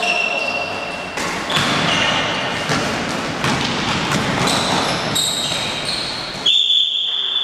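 Indoor basketball game: the ball bouncing on the court and players' sneakers squeaking on the floor, with voices echoing in the hall. Near the end, a high steady tone lasts about a second.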